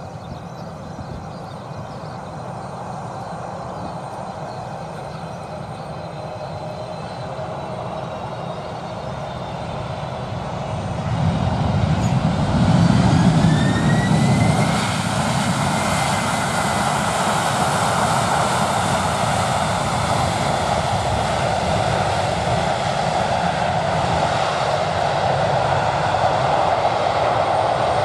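A Boeing 767 airliner's jet engines on landing, growing louder as it approaches. About eleven seconds in it peaks in a loud low rumble with a rising whine as it passes and touches down. Then comes a steady, loud jet noise as it rolls out along the runway.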